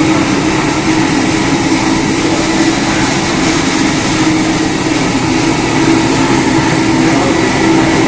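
Walk-behind commercial carpet-cleaning machine running steadily as it scrubs wet carpet, its motor giving a constant hum.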